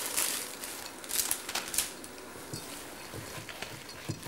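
A plastic packet of chopped dates crinkling as the dates are tipped into a bowl of batter. From about halfway, a spoon stirring them into the batter gives a run of soft knocks against the bowl.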